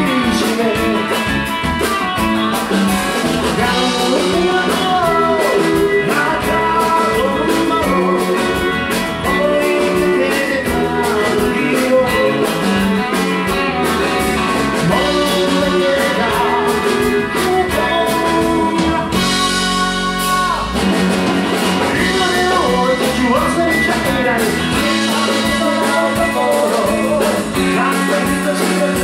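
Live rock band: a woman singing lead over electric guitar, electric bass and a drum kit.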